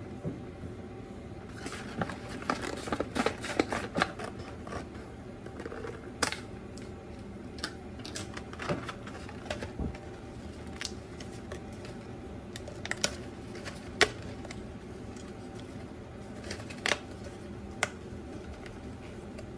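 Cardboard snack box and its paper tab handled by hand: a dense patch of paper rustling and clicks in the first few seconds, then scattered single sharp taps and clicks, over a steady low hum.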